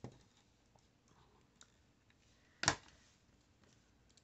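Quiet handling of paper craft pieces on a tabletop as a paper sunflower is pressed into place, with one sharp tap or click about two and a half seconds in and a couple of faint ones before it.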